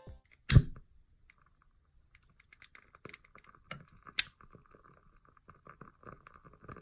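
One sharp thump, then a run of light, irregular clicks and taps, a few of them sharper than the rest.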